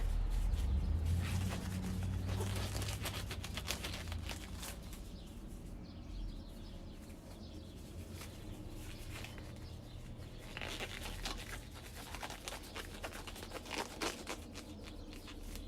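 Gloves being pulled onto hands: rubbery rustling and crinkling with scattered small clicks, over a low handling rumble in the first few seconds.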